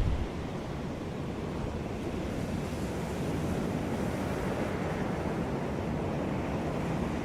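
Sea waves washing onto a beach: a steady, even roar of surf, swelling slightly toward the end.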